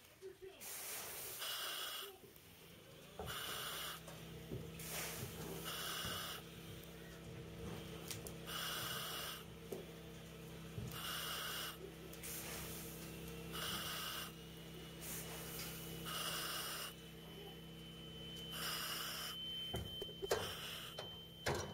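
Firefighter breathing through a self-contained breathing apparatus mask: regular hissing breaths through the demand valve, about one every two seconds, over a steady low hum. A faint thin high tone joins about halfway through.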